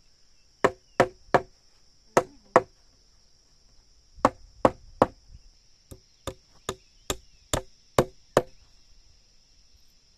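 Repeated sharp blows of a hand tool striking wood: a group of three, a pair, another three, then a run of about eight at roughly two and a half blows a second. A steady high drone runs underneath.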